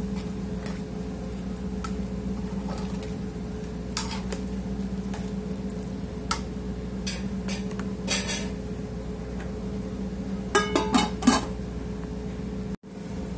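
A metal turner stirring and scraping in a large aluminium cooking pot, with scattered light knocks and a quick run of louder metal clanks near the end. A steady low hum runs underneath.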